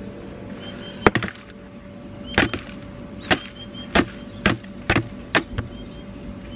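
A series of sharp knocks and thuds, about seven over five seconds, from a black plastic nursery pot being handled and emptied as a root-bound fruit tree is transplanted.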